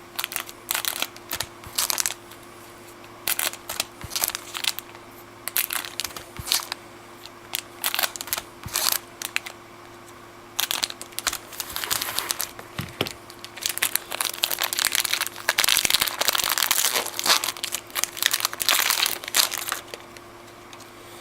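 Foil trading card pack wrappers crinkling as the packs are handled, cut and pulled open. The crackling comes in irregular bursts, sparse at first and denser and louder in the second half.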